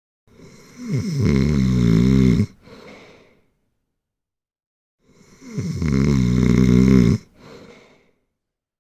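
Loud snoring: two long, rattling snores on the in-breath, each about two seconds with a wavering pitch, about five seconds apart. Each is followed by a short, softer out-breath and then a silent pause.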